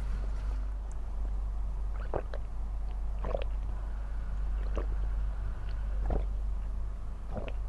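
A person chewing smoked chicken close to the microphone, with short wet mouth sounds about once a second over a steady low hum.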